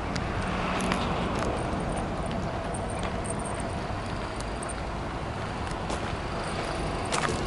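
A few footsteps crunching on gravel over a steady low vehicle rumble.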